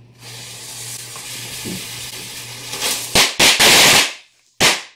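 A firework fuse hisses steadily for nearly three seconds, then firecrackers go off in a quick run of loud bangs and crackling, with one last bang about half a second later.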